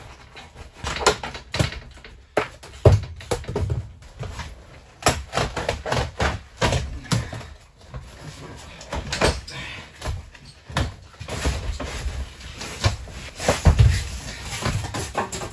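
Irregular clanks, knocks and clatter of a school bus bench seat being dismantled, its back lifted off the metal frame, with two heavier thumps, about three seconds in and near the end.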